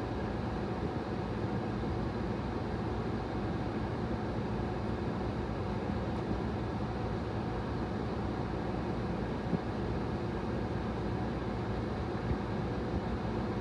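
Steady low rumble and hum inside a stopped car's cabin, typical of the engine idling, with a couple of faint clicks near the end.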